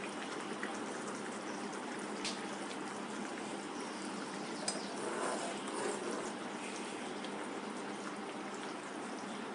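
Small-fish curry boiling hard in a pot on a gas burner: a steady bubbling with an occasional faint pop.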